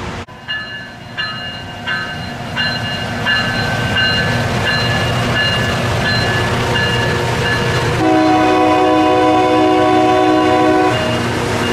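A grade-crossing bell dings at a steady pace while a LORAM rail grinder rumbles past on the track. About eight seconds in, the grinder's horn sounds one long blast of about three seconds, which is the loudest sound.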